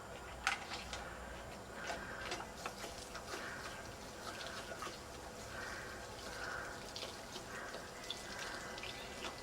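Water running and splashing irregularly from a dog's push-valve water fountain fitted with a metal valve, as the dog pushes on the valve and drinks.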